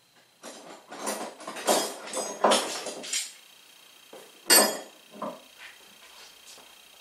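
Metal pieces clinking and clattering together in a quick run of rattling knocks lasting a few seconds, then one loud clank about four and a half seconds in and a few lighter knocks after it.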